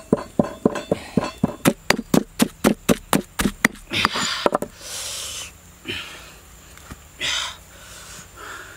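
Stone pestle pounding chili paste in a stone mortar: a run of sharp knocks, about three a second and quickening to about five a second, that stops about four seconds in. A few short, soft noisy sounds follow.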